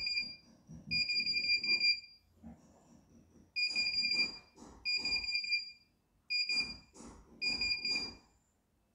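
CNY E900 embroidery machine's control panel beeping as its buttons are pressed to scroll through the stored embroidery files. The high beep comes in about six short runs, each a rapid string of repeated beeps from a held button, with faint button-press thuds beneath.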